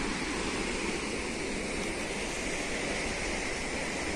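Waterfall's steady rushing sound, heavy falling water with no breaks.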